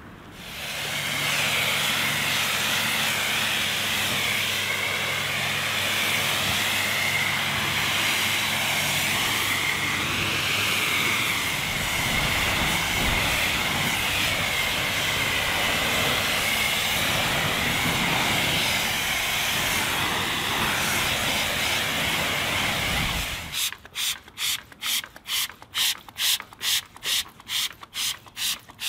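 Pressure washer jet spraying water onto a car's bodywork to rinse off snow foam, a steady loud hiss. About 23 seconds in it stops and gives way to a rapid run of short hissing strokes, about three a second.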